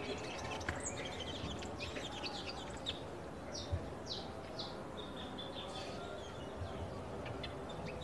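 Small birds chirping in short, high notes, with a few quick falling chirps around the middle, over a faint steady background noise.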